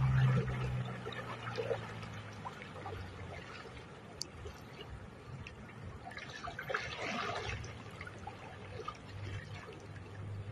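River water sloshing and splashing around legs wading through a muddy river, louder for about a second around seven seconds in. A low hum is heard at the start.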